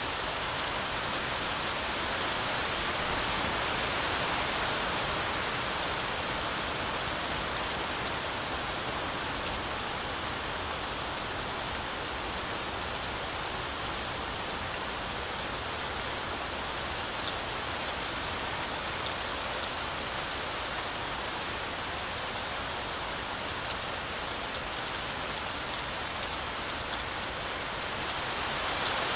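Heavy rain falling steadily through a forest canopy, a continuous hiss of drops on leaves with a few separate drop ticks.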